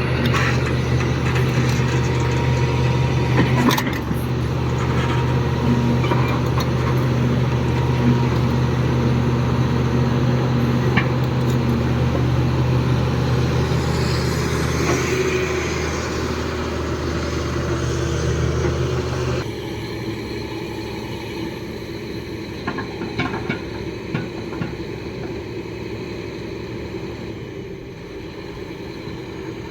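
Heavy diesel machinery engine running steadily with a deep hum, which drops out suddenly about two-thirds of the way through, leaving a fainter rumble and general site noise.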